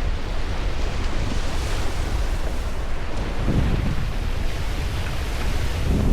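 Sea waves washing in as a steady surf, swelling about two seconds in, with wind rumbling on the microphone in gusts.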